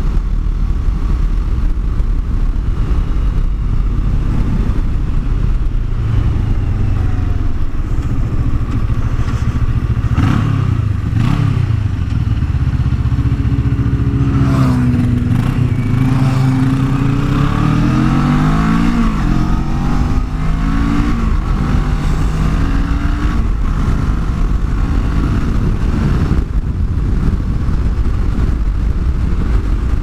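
Yamaha FZ-09's three-cylinder engine running under way, with heavy wind rush on the microphone. From about halfway through, the engine pitch climbs and drops several times as the revs change.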